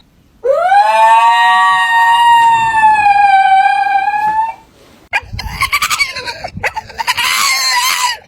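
A dog gives one long howl of about four seconds that rises quickly, then holds and slowly sinks, sounding much like a rooster's crow. A rougher, noisier stretch of yowling follows in the second half.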